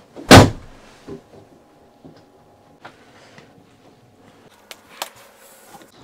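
Camper door shut with one loud bang shortly after the start, followed by a few faint knocks and clicks.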